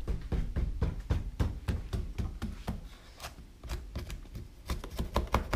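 Knife blade slicing and sawing through a duct-taped cardboard package, an irregular run of short sharp clicks and scrapes, several a second.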